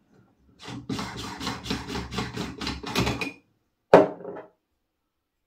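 Quick run of rasping clicks as a tracer unit is twisted on the airsoft gun's threaded muzzle, lasting about three seconds, then a single sharp knock as it is set down on the table about four seconds in.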